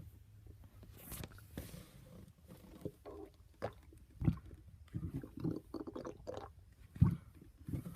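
A person burping: irregular wet gurgles and clicks, with two louder short burps about four and seven seconds in.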